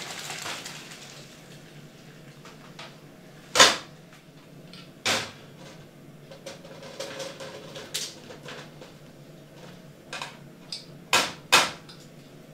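Boiled carrots being drained and handled: a hiss of cooking water running into a colander in a steel sink that fades within the first second, then several sharp knocks and clatters of an aluminium colander against a steel pot as the carrots are tipped in.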